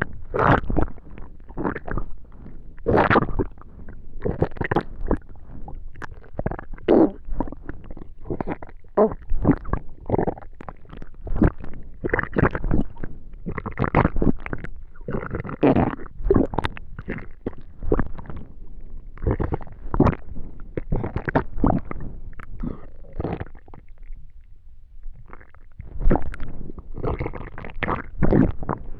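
Human stomach and intestines gurgling and rumbling during digestion, in rapid irregular bursts, with a quieter spell a few seconds before the end.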